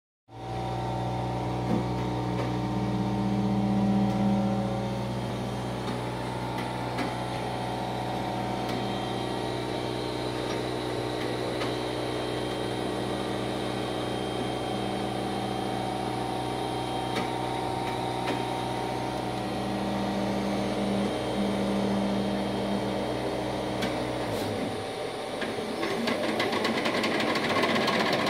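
Mimaki UJF-3042HG UV LED flatbed printer running with a steady low hum. About 25 seconds in the hum drops away and a fast, dense rattling starts as the print-head carriage begins to move.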